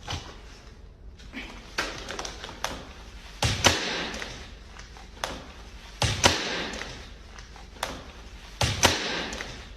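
A series of knocks and thumps, with three heavier thuds evenly spaced about two and a half seconds apart, each followed by a brief rush of noise.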